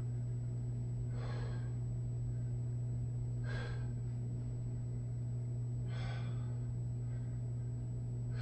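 A man exhaling hard from exertion during bodyweight lunges, three breaths about two and a half seconds apart, over a steady low hum.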